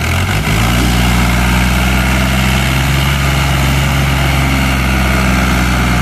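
Ghazi 460 tractor's diesel engine opened up to full throttle about half a second in, then held steady at high revs under heavy load as it strains to pull a loaded sugarcane trolley whose wheels have sunk into the ground.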